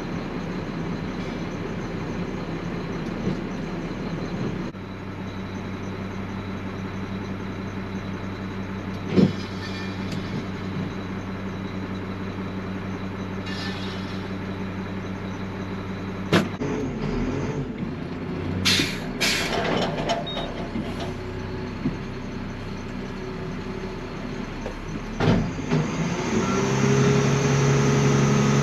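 Front-loading garbage truck's diesel engine running, heard from inside the cab. Its note shifts about five seconds in, and it revs up and gets louder near the end. A few sharp knocks and short hisses come from the truck partway through.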